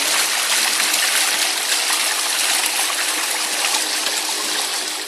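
Flowing water in a steady, loud rush.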